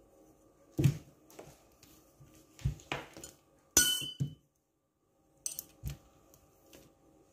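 Stainless steel rolling pin rolling pastry dough thin on a plastic-covered table, with about seven separate knocks and clinks as the pin is pressed, lifted and set back down. The loudest, about four seconds in, rings briefly like metal.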